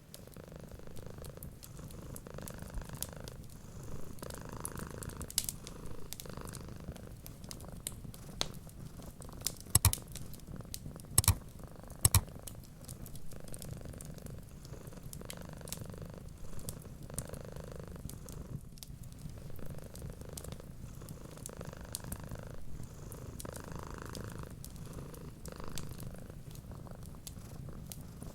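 Cat purring steadily, swelling every second or two, over a wood fire crackling with scattered small clicks and a few sharp louder pops about ten to twelve seconds in.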